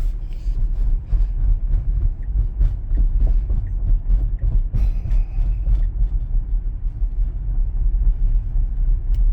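Steady low road and tyre rumble inside the cabin of a Tesla Model Y, an electric car, driving slowly.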